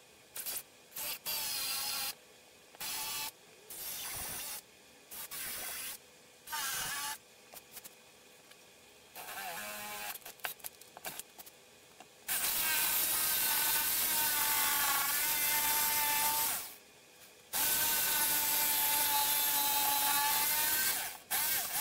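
Cordless drill with a spade bit boring into OSB in many short trigger bursts. From about halfway a corded jigsaw cuts the OSB in two long steady runs with a brief pause between them.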